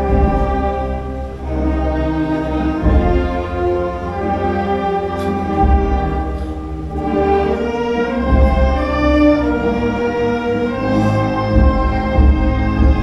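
Orchestral music of bowed strings and brass playing long held chords that change every second or two over a deep bass.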